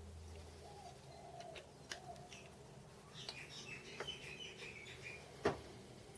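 Faint birdsong: a few low arching calls in the first two seconds, then a run of higher chirps. A few sharp clicks come through it, the loudest about five and a half seconds in.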